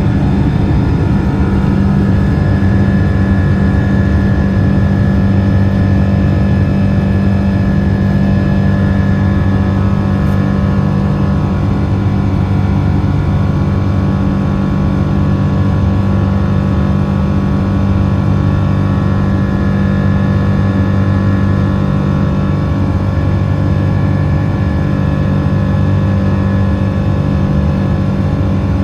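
Rolls-Royce Trent 800 turbofan engines of a Boeing 777-200ER running steadily: a loud, even drone with a low hum and a steady higher whine above it.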